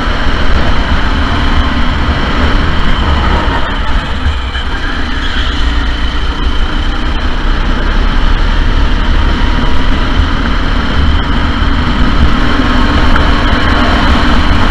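Sodi SR4 go-kart engine running continuously at racing speed, easing off slightly about four seconds in and then picking up again, over a heavy low rumble.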